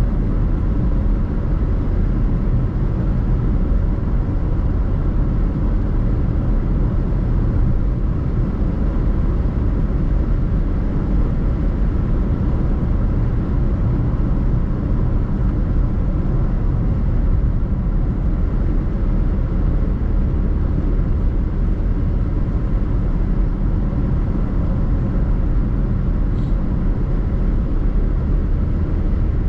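Car driving at a steady pace, with an even road and engine rumble.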